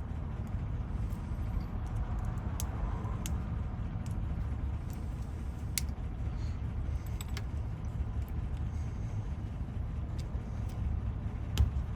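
Scattered light metallic clicks of small tools working bent wafers out of a Chevy Silverado door lock cylinder, heard over a steady low rumble.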